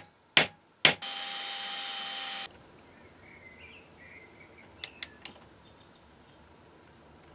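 A few sharp metallic taps of a small hammer on a centre punch marking out a metal engine base, then a burst of steady machine noise with a thin whine lasting about a second and a half that cuts off suddenly. After that, only faint scattered clicks.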